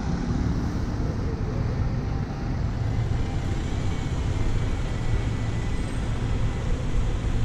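City street traffic: a steady low rumble from a city bus engine running at a stop close by, over the general noise of passing vehicles.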